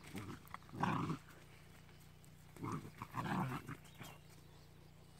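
Maremma sheepdog puppies growling as they play-fight, in two short bouts: one about a second in and a longer one around three seconds in.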